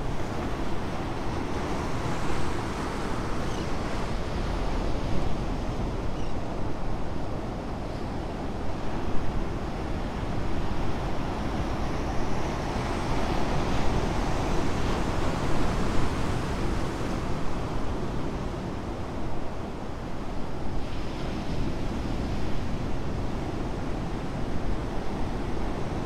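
Ocean surf breaking and washing against shoreline rocks: a continuous rush of water that swells with each breaking wave, fullest around the middle, over a low rumble of wind on the microphone.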